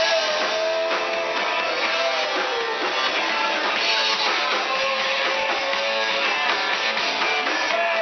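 Live rock band playing in a bar: electric guitar strumming over drums, with a singer's voice in the mix.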